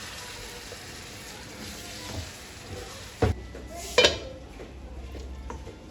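Pot of daal maash sizzling and bubbling on the stove while being stirred, with a spoon knocking sharply against the pot about three seconds in and again a second later.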